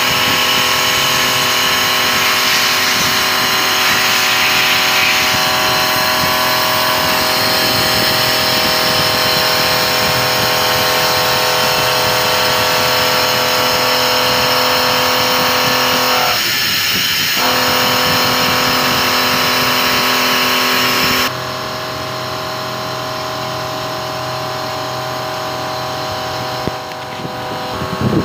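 Vertical milling machine's end mill cutting a round pocket in a mold plate: a steady machining whine made of many held tones. It breaks off for about a second past the middle, and a little later the sound drops abruptly to a quieter, duller cut.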